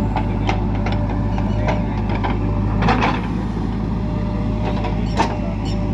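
Heavy diesel engine running steadily under work, with scattered clanks and knocks. The loudest knocks come about three seconds and about five seconds in.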